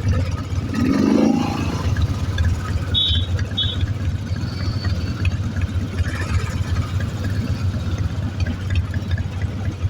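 Royal Enfield motorcycle engine running steadily on the ride, with two short high beeps about three seconds in.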